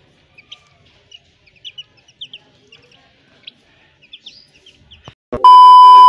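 Young chicks peeping in short, high chirps. About five seconds in, a loud, steady electronic test-card beep, the tone that goes with a TV colour-bar test pattern, cuts in and lasts about a second.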